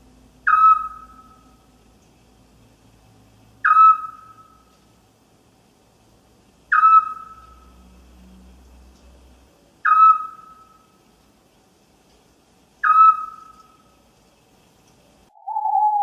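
An owl calling: five short, sharp calls about three seconds apart, each dropping quickly in pitch and trailing off. Near the end comes a lower, longer call.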